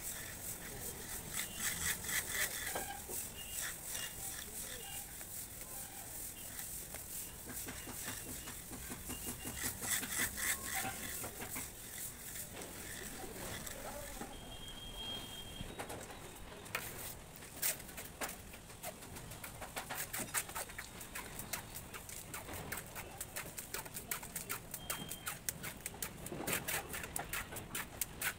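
Hand float rubbing over fresh cement-sand plaster on a wall, a rasping scrape in many short strokes, with birds calling now and then.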